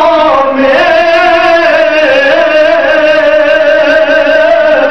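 A man's voice chanting in a drawn-out, melodic style, holding one long note that wavers slightly in pitch, amplified through a microphone.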